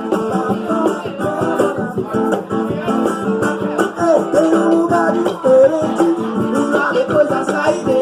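A band playing a song: plucked guitar over a steady, quick beat of shaker-like percussion, with a melody line bending in pitch over it.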